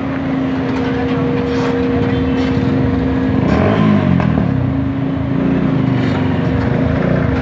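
Heavy diesel engine running steadily under a constant hum, from a JCB tracked excavator being loaded onto a truck trailer. About three and a half seconds in the sound grows louder and its pitch shifts up and down.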